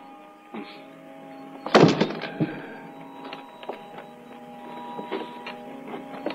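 A heavy knock of a big man dropping onto a wooden chair beside a wooden confessional, followed by a few smaller wooden knocks and creaks as he settles, over faint sustained background tones.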